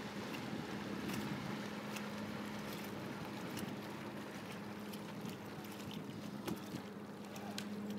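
Open-water ambience: a steady wash of water and wind with small splashes, over a constant low hum.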